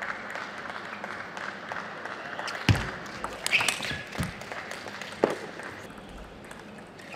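Table tennis rally: the ball knocks sharply off bats and table about five times, roughly half a second to a second apart, after a couple of seconds of steady background hiss.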